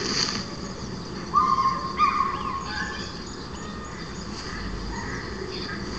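Birds calling over a steady outdoor hiss: a held whistled note about a second and a half in, followed by a few short chirps.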